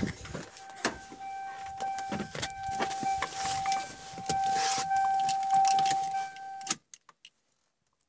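Steady high warning tone from a 1995 Toyota RAV4's door-open key-reminder buzzer, over clicks and knocks of the door and of someone climbing into the seat. The tone cuts off with a sharp knock, the door shutting, a little before the end.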